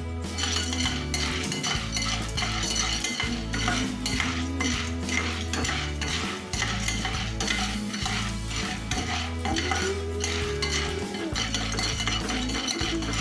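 A spatula stirring and scraping popcorn kernels around a non-stick frying pan in oil, in a quick run of repeated strokes.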